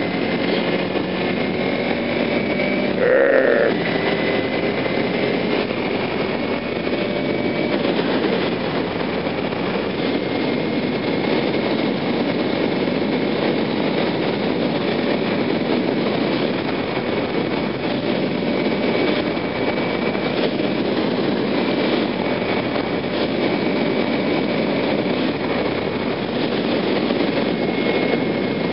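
Motorcycle cruising at highway speed: steady engine and wind noise. A short, loud beep comes about three seconds in.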